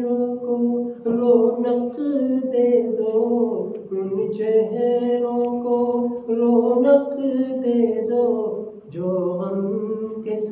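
A man chanting a devotional munajat solo and unaccompanied, in long held melodic lines with brief breaks between phrases.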